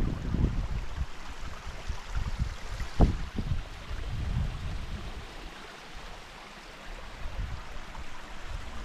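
Shallow stream running over rocks, a steady rushing hiss, with irregular low buffeting rumbles of wind on the microphone; the strongest bump comes about three seconds in.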